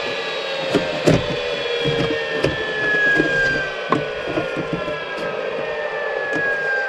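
Vinyl soffit panel being pushed and fitted into place under an eave, with light knocks and clicks, the strongest about a second in. Behind it runs a steady drone with several tones slowly falling in pitch.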